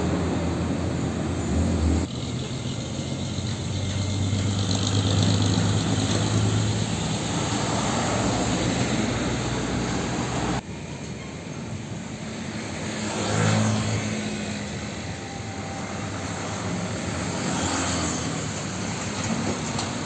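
Road traffic with heavy diesel trucks driving past, engines running with a steady low hum over tyre and road noise. The sound changes abruptly about two seconds in and again about halfway through.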